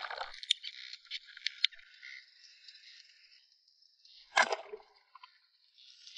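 Underwater ambience heard through a submerged camera: a steady hiss with a few sharp clicks in the first two seconds, and one short, loud noise about four and a half seconds in.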